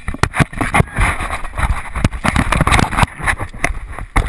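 Handling noise from a GoPro camera rubbing and bumping against a jacket: irregular scrapes, knocks and thumps.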